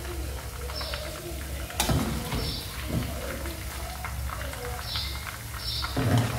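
A metal utensil knocks against a cooking pan twice, sharply about two seconds in and heavier near the end, over a steady low hum. Short high bird chirps come in between.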